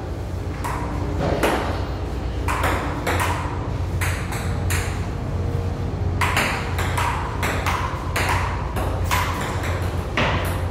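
Table tennis ball clicking back and forth off paddles and the table top in a rally, roughly two or three hits a second with a brief break about five seconds in. A steady low hum runs underneath.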